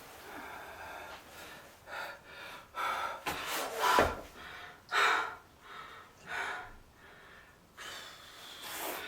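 A woman breathing audibly: a series of deep breaths and gasps, about one a second.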